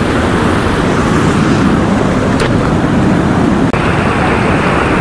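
Fast mountain river rushing over rocks, a loud, steady white-water noise. Its tone shifts slightly about three and a half seconds in.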